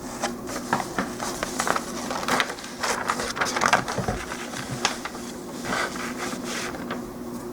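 Irregular clicks, clacks and rustling as plastic model kit parts and packaging are handled on a tabletop, over a faint steady hum.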